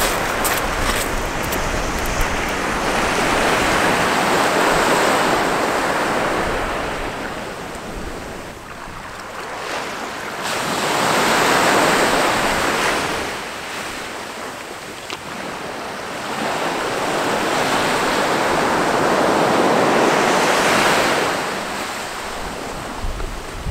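Sea surf washing onto a beach, the rush of the waves swelling and fading three times, about every eight seconds.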